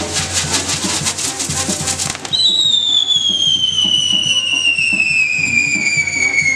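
Fireworks crackling in a dense run of rapid cracks for about two seconds. These give way to one long whistle that slides slowly down in pitch, over brass band music.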